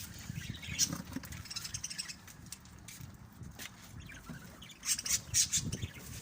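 Birds squawking in short, harsh bursts, loudest in a cluster about five seconds in.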